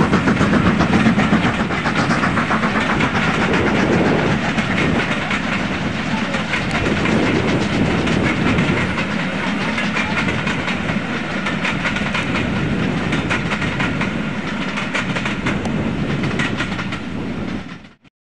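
Steam-hauled passenger coaches rolling past at close range, the wheels clicking over rail joints in a steady clickety-clack. The sound cuts off suddenly near the end.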